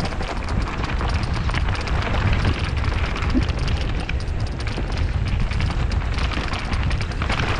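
Mountain bike descending a rough trail at speed: tyres crunching over gravel and rock with a constant clatter of the bike rattling, under a steady rumble of wind buffeting the action camera's microphone.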